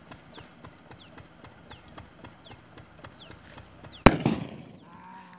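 A firecracker explodes underwater in a river, one sharp blast about four seconds in. The water plume it throws up splashes back down for about half a second afterwards.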